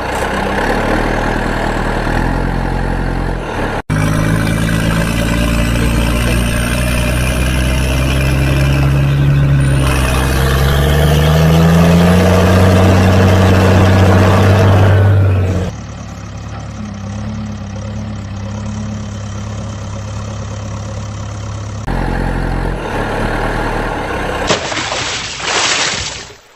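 Heavy diesel engine sound, idling and revving up in pitch, in spliced segments that cut in and out abruptly. Near the end there is a short loud burst of noise, fitting a splash of muddy water.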